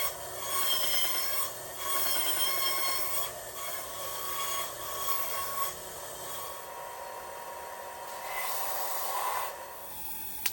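Hand file worked in long strokes along a steel knife blank, the steel ringing with a few clear tones on each stroke, the strokes growing fainter in the second half.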